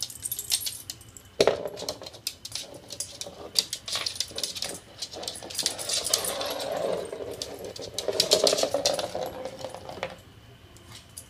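Solid ice ball rolling and clattering over a tile floor as a dog noses it along, with sharp clicks of ice and claws on the tile. The ball comes to rest about ten seconds in and the sound falls away.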